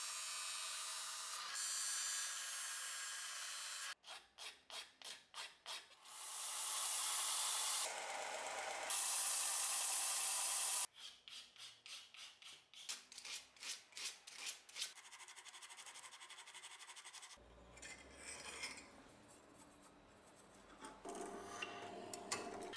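Ash wood cleaver handle being shaped: stretches of steady hissing sanding alternate with runs of quick, even hand-rasp strokes, about three or four a second.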